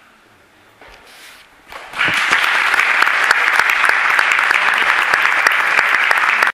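An audience applauding: after a quiet moment, clapping breaks out about two seconds in, many hands together, steady until it cuts off suddenly.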